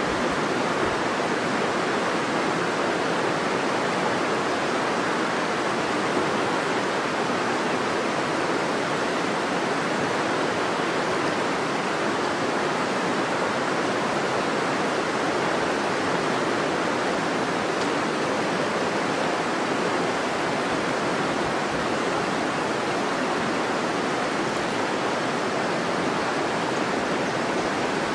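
River water rushing in a steady, even flow.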